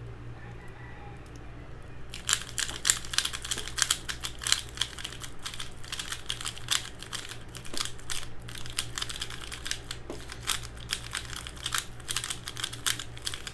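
A QiYi Valk 3 3x3 speedcube being turned quickly, a dense irregular run of plastic clicks and clacks starting about two seconds in. It is freshly lubed and turns a little heavy, the lube not yet broken in.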